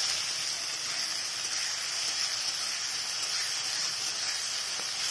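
Chopped onion and garlic sizzling steadily in hot oil in a non-stick kadai as they are stirred with a spatula.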